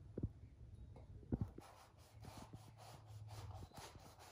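Knife cutting into the thick rind of a pomelo. Two soft knocks, then a quick run of short scratchy strokes as the blade scores around the fruit.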